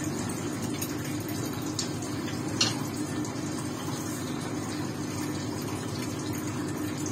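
Steady low hum with an even hiss of room noise, with a faint click about two and a half seconds in.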